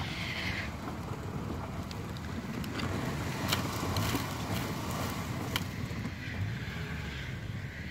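Engines of a stuck Lexus LX 470 and the SUV towing it on a strap running under load, with the Lexus's wheels spinning in snow. A few sharp cracks sound in the middle.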